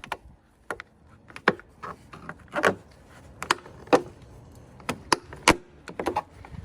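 Flathead screwdriver prying at a plastic trim cover: a string of irregular sharp clicks and knocks as the cover's retaining clips are pushed out.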